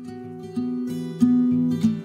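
Background music: acoustic guitar playing plucked notes, starting softly and growing louder.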